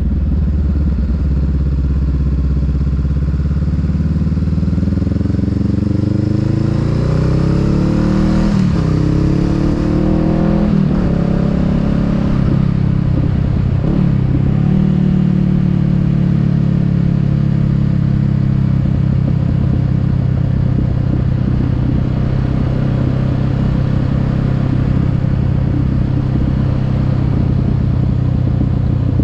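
Honda Rebel 500's parallel-twin engine pulling a motorcycle along, heard from the rider's seat. Its pitch climbs for several seconds, drops back at two or three upshifts in the middle, then holds steady at a cruise.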